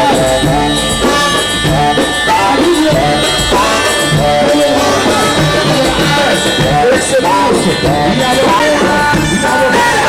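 Egyptian Arabic pop song music: a wavering, ornamented melody line over drums and percussion.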